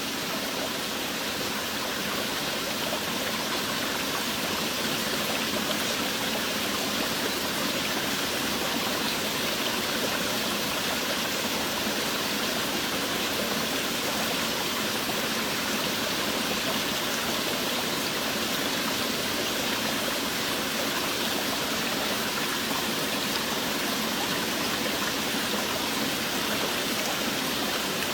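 Steady rain falling, a dense, even hiss with no single drops standing out.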